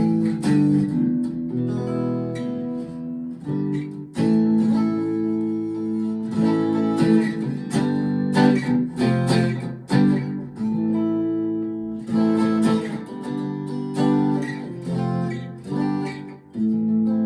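Rockburn Strat-style electric guitar, strung with Ernie Ball 10s, played clean through an amp on the neck pickup: loose noodling of picked single notes and chords, with notes left to ring.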